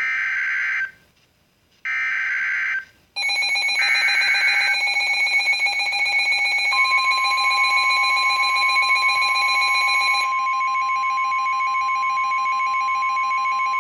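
Emergency Alert System tones. First come two short bursts of harsh digital data, the end-of-message signal closing the severe thunderstorm warning. About three seconds in, a layered, pulsing electronic alarm starts, with a third data burst inside it. About halfway through, the long, single, steady warning alarm tone joins, opening the tornado warning.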